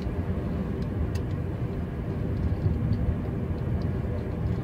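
Steady road noise of a moving car, heard from inside the cabin, with a few faint ticks.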